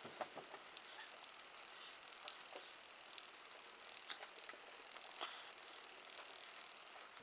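Faint, irregular light rattling and ticking as a hand-held static grass applicator, a plastic container with a strainer on a PVC handle, is shaken to sift grass fibres. It is unplugged from its high-voltage generator, so only the shaking is heard.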